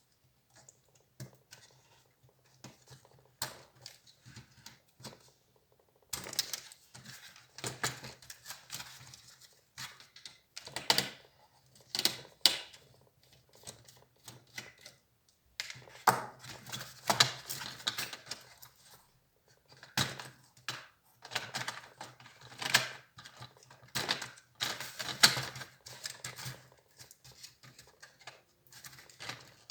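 Irregular clicks, taps and short scraping rattles of laptop plastic parts, screws and hand tools being handled. These are sparse at first and come thicker from about six seconds in, over a faint low hum.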